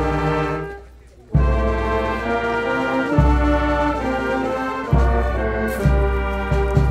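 Brass band playing slow music in held chords, with a low drum stroke at the start of each new phrase. The music falls away briefly about a second in, then comes back.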